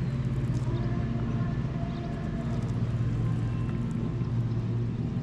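A motorboat engine running with a steady low drone.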